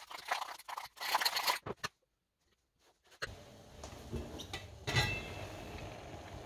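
A metal spoon scraping and stirring a thick seasoning paste in a small stainless steel bowl. Then, after a short silence, a stainless steamer pot on an induction hob gives a steady hiss of steam, with a ringing metallic clink about five seconds in as its lid is lifted.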